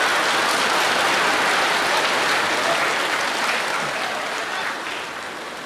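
Theatre audience applauding, a dense steady clapping that thins out near the end.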